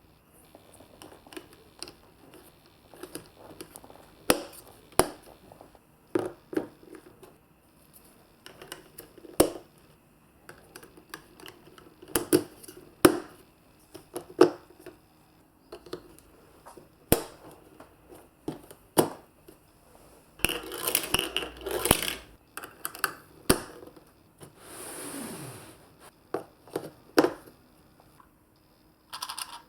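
Marbles rolling and clacking down a plastic block and magnet marble-run course: a string of irregular sharp clicks and knocks, with a dense rattle about two-thirds of the way through.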